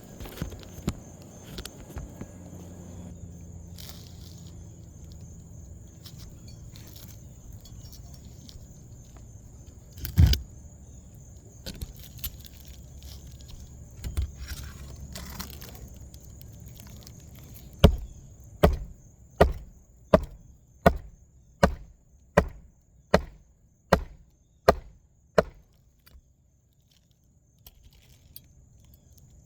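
Hammer driving a roofing nail into an asphalt shingle: a single knock, then a run of about eleven even blows roughly two thirds of a second apart, ending abruptly.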